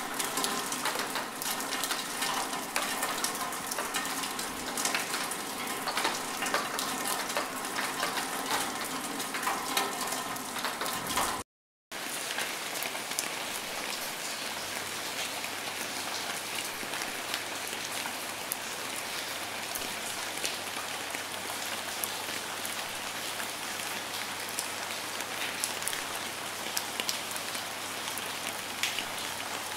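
Rain falling, with individual drops ticking sharply over a steady patter. It cuts out for a moment about eleven seconds in, then a steadier, more even rain carries on.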